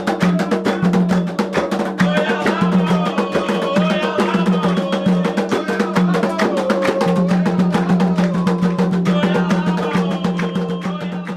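Atabaque hand drums played in a fast, dense rhythm, with a melody line wandering above the drumming; the music fades a little near the end.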